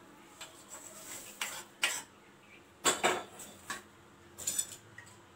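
A spatula scraping and knocking against a steel plate and pan, about half a dozen separate clinks and scrapes at uneven intervals, loudest around the middle, as dry-roasted spices are moved out of the pan.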